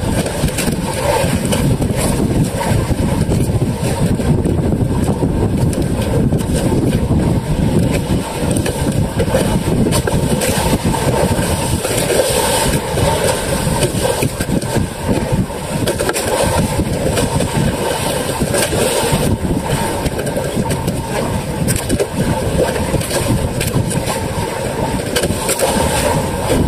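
Small outrigger boat's engine running steadily under wind and sea noise.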